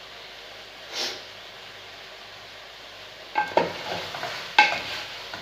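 Chicken adobo sizzling in a pan, then from a little past the halfway point a utensil stirring it, clinking and scraping against the pan several times.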